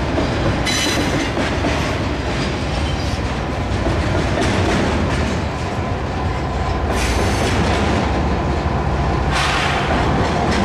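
Union Pacific double-stack container train rolling past with a locomotive at its rear: a steady low rumble with wheel clickety-clack. There are brief harsher surges about a second in and again in the last few seconds.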